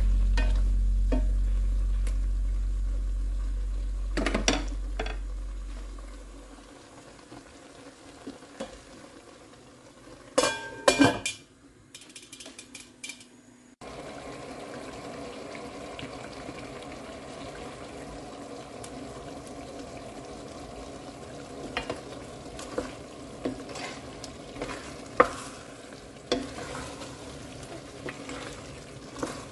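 Chicken and vegetables sizzling and simmering in sauce in a stainless steel pan, with a spatula knocking and scraping against the pan as it is stirred. A low sustained note from music fades out over the first few seconds. The sizzle becomes a steady hiss about halfway through.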